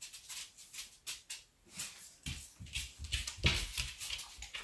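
Small dogs' claws clicking and pattering irregularly on a hardwood floor, with soft thumps, getting louder about two seconds in.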